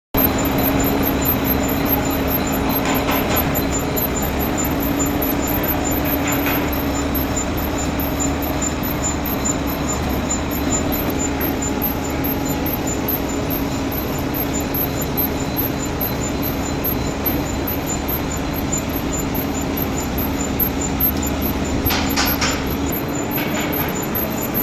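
Lathe running steadily while turning a round shaft, a constant machine hum with a few short sharper sounds about 3 seconds in, about 6 seconds in and near the end.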